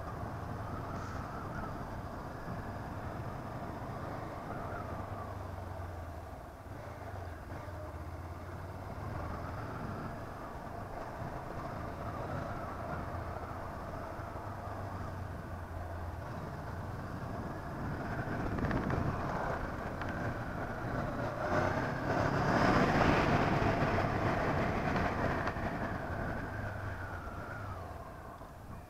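Honda CB 500F parallel-twin engine running steadily under way, with road and wind noise. The noise grows louder a little past the middle, then fades again near the end.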